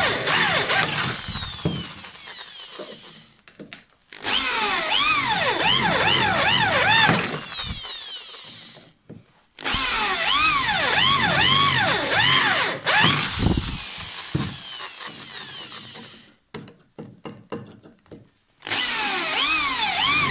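Corded electric drill boring through a steel square tube, run in four bursts with a wavering whine while the bit cuts. Each burst dies away as the motor winds down between them.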